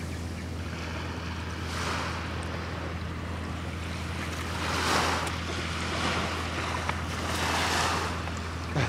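Wind and surf on a beach, an even rushing noise over a steady low rumble, swelling and fading three times.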